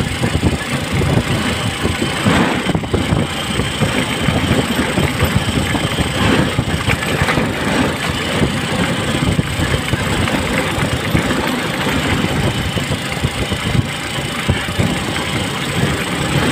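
A small vehicle's engine running steadily as it drives along a road, heard from on board, with a constant clatter of the vehicle body and road noise.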